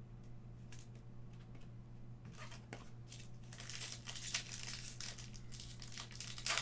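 A trading-card pack being torn open, its wrapper crinkling from about three and a half seconds in, after a few faint clicks.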